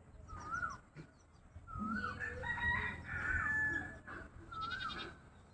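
Chickens calling: short rising-and-falling calls repeated several times, with a longer drawn-out call in the middle lasting about a second and a half.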